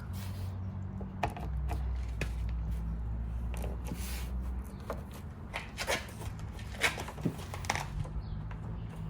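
Scattered light clicks and rustles from hands handling and pressing a plastic wicker bill spoiler lip against a car's rear spoiler, over a low steady hum.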